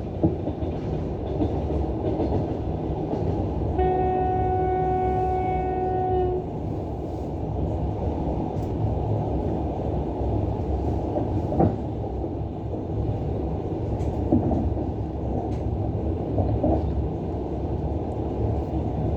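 Steady rumble of a moving passenger train hauled by a DM62 diesel locomotive, with a few separate clacks of the wheels over rail joints. A few seconds in, a train horn sounds one steady note for about two and a half seconds.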